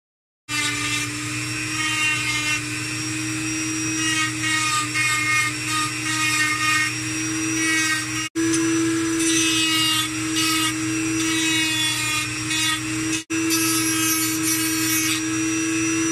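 Dremel rotary tool running at a steady high speed, its whine holding one pitch, with a small sanding drum rubbing against a wooden carving to smooth it. It starts about half a second in and cuts out for an instant twice, about 8 and 13 seconds in.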